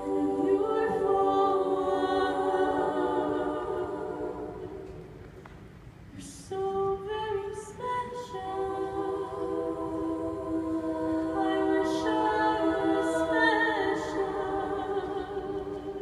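Female a cappella group singing close-harmony chords into microphones. Held chords fade about four seconds in, then the voices come back in a couple of seconds later and build again.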